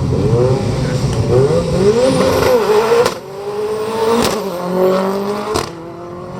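Ford Escort RS Cosworth Group A rally car's turbocharged four-cylinder engine accelerating hard, the revs climbing and dropping through several quick gear changes, then pulling away and fading.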